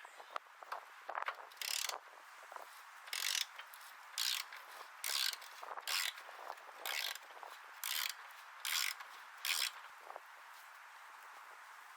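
Hand ratchet wrench clicking in short strokes, about once a second, as rusted bolts are worked out of a car's firewall.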